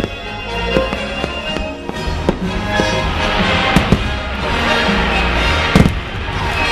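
Fireworks bursting with several sharp bangs, the loudest pair about six seconds in, over the fireworks show's music soundtrack, which plays throughout.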